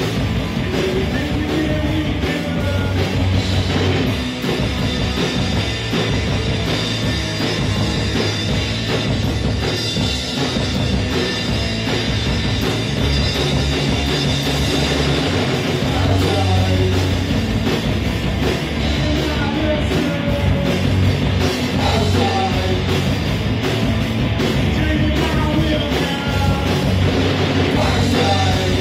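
Rock band playing live and loud: two electric guitars through amplifiers and a drum kit, running without a break.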